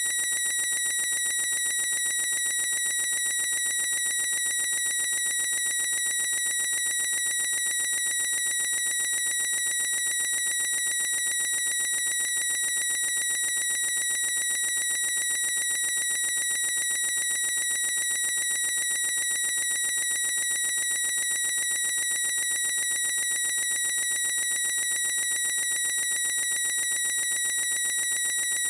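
A boy's shrill squeal, looped into one unbroken high-pitched tone at a fixed pitch and steady loudness, with no breaths or breaks.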